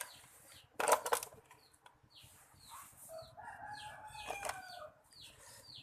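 A rooster crows once in the middle, a held call lasting about a second and a half, over short high chirps repeating about three times a second. A brief clatter comes about a second in.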